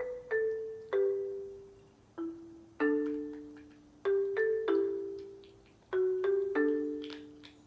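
Background music: a slow, gentle melody of single struck mallet-percussion notes, each ringing and fading before the next.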